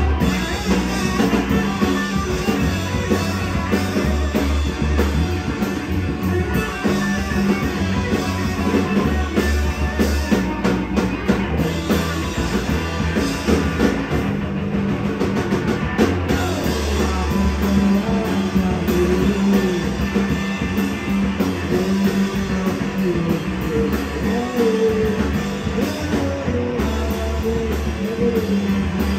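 Live rock band playing electric guitars over a drum kit: a loud, dense, unbroken mix, heard from the audience in a small club.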